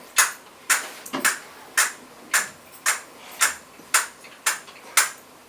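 Sharp clicks tapped out at an even pace, about two a second, as a hand-made sound effect on a small percussion instrument.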